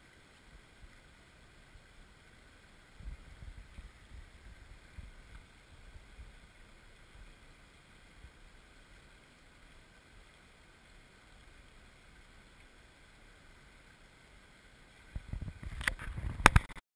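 Faint steady flow of a shallow river, with low gusts of wind rumbling on the microphone from about three to seven seconds in. Near the end come loud, close knocks and rubbing against the microphone.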